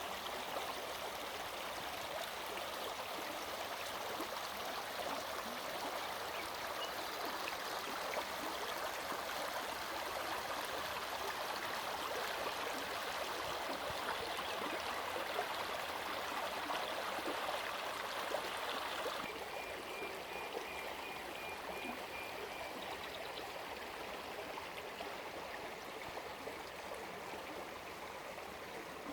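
Stream water flowing and burbling steadily, a little quieter after about two-thirds of the way in. A short run of evenly repeated high bird notes comes in just after the drop.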